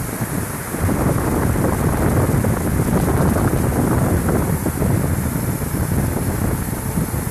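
Steady rushing, rattling noise of corn seed pouring from a seed-tender auger hose into a planter's seed hopper, mixed with wind buffeting the microphone.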